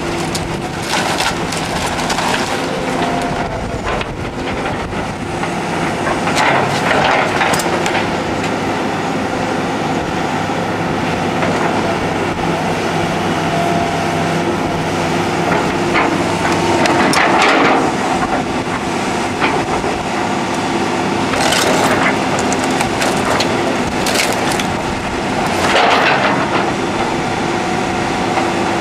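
Heavy construction equipment tearing down a storm-damaged house: its diesel engine runs steadily while wood cracks and crunches again and again as the structure is broken apart.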